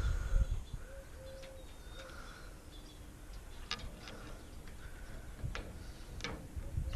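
A bird calling in a series of short, low, repeated notes, with a few sharp clicks and taps from hands working on the fitting.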